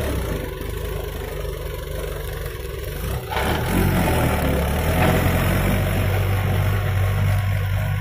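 Mahindra 475 DI tractor's diesel engine running while it pulls a trailer loaded with mud, a steady low hum that grows a little louder about three seconds in.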